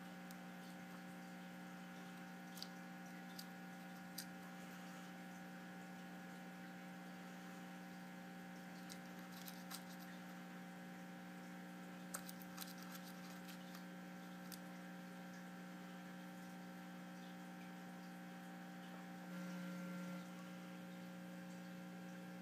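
Steady low electrical hum with a scattering of faint, short clicks and taps from a cat's mouth and paw working at a rotary thermostat dial.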